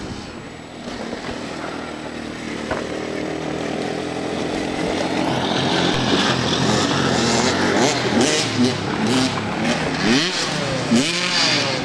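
Motocross dirt bike engines running around a track, growing louder over the first several seconds, then revving up and down in quick rises and falls near the end.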